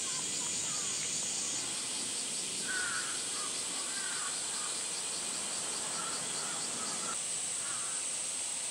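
Crows cawing in a few short calls spread through, over a steady high drone of summer cicadas.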